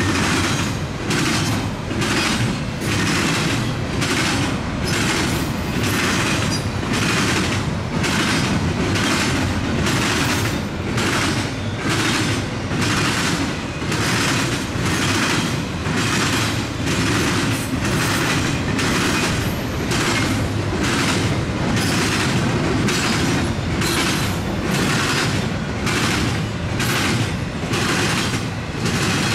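Double-stack container cars of a CN intermodal freight train rolling past: a steady rumble of wheels on rail with a clickety-clack in an even rhythm, about one beat a second.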